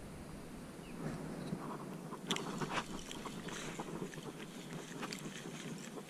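Scattered small clicks and rustles close to the microphone over a faint steady outdoor background: handling noise from the hands working a pen fishing rod.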